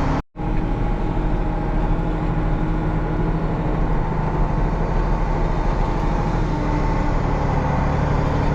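7110 farm tractor's diesel engine running steadily while pulling a loaded manure spreader, with a brief dropout in the sound just after the start.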